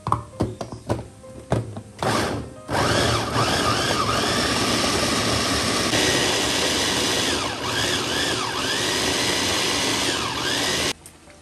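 A few clicks and knocks, then a small electric motor runs loudly and steadily for about eight seconds, its pitch wavering, before it cuts off suddenly.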